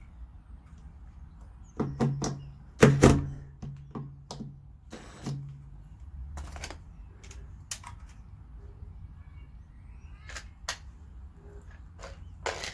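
Irregular knocks and clicks, with the loudest cluster of sharp knocks about two to three seconds in and a low hum under them for a few seconds, followed by scattered lighter clicks.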